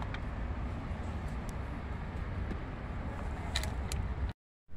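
Steady low rumble of outdoor background noise, with a few light clicks of tool gear being handled about three and a half seconds in; the sound drops out completely for a moment near the end.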